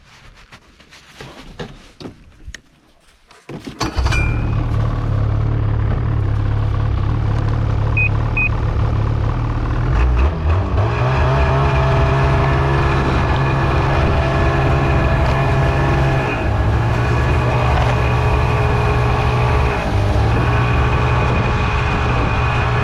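Ski-Doo MXZ 800 snowmobile's two-stroke engine being started: a few faint clicks and knocks, then the engine catches about four seconds in and runs steadily. Two short high beeps sound a few seconds after it starts, and the engine note shifts slightly a few times.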